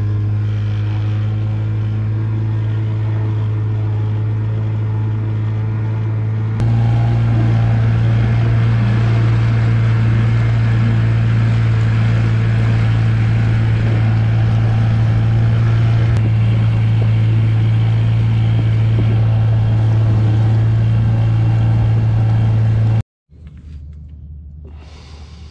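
Small boat's outboard motor running steadily underway, a low hum with a drone of overtones. It stops abruptly near the end.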